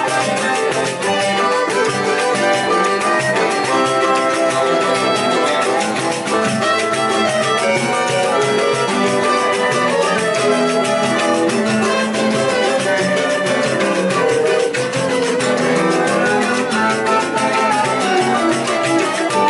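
Live choro ensemble playing an up-tempo tune: cavaquinhos and seven-string guitar strumming and picking, with cello, flutes, accordion and a pandeiro keeping the rhythm.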